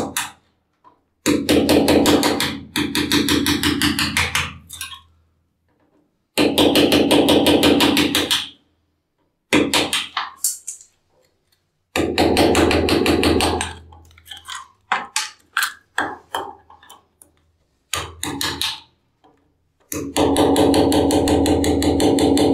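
Hammer tapping a sharpened screwdriver used as a chisel, chipping ceramic tile around a concealed mixer's wall box, in repeated bursts of quick light blows with short pauses between them. The tile edge is being chipped back bit by bit so the mixer's trim plate can sit flush.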